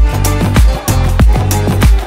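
Music with a heavy bass beat, about two beats a second, with percussion and no vocals.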